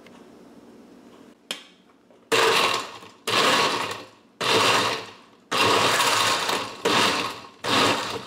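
Countertop glass-jar blender on its ice-crush setting, pulsing: after a click the motor runs in six bursts of about a second each, with short breaks between, chopping ice cubes together with fruit and liquid.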